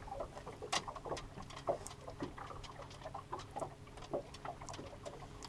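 Irregular soft clicks and crinkles of small things being handled close to the microphone, several a second, over a faint steady low hum.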